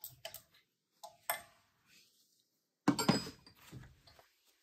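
Short metallic clinks and rattles of a hand tool working on the AC compressor's mounting bolts: a few separate clinks in the first second and a half, then a denser clatter about three seconds in.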